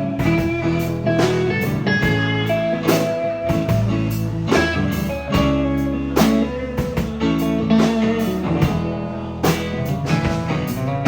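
Instrumental break in a blues-tinged country song: guitar playing over bass and drums, with steady drum hits.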